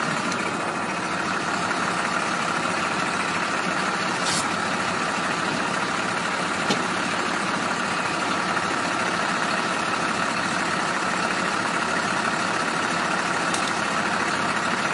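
A vehicle engine idling steadily, with a couple of faint sharp clicks about four and seven seconds in.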